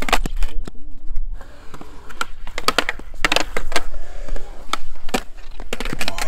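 Skateboard on concrete: urethane wheels rolling with a low rumble, broken by a series of sharp clacks and slaps as the board's tail pops and the deck hits the ground and ledge, several in quick succession past the middle.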